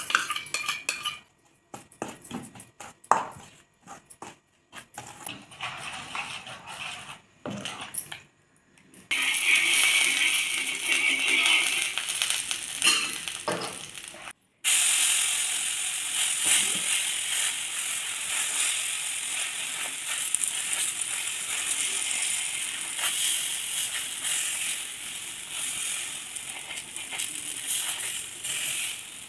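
Steel spoon clinking and scraping against a steel plate while batter is mixed, then oil and batter sizzling in a steady hiss on a hot iron tawa.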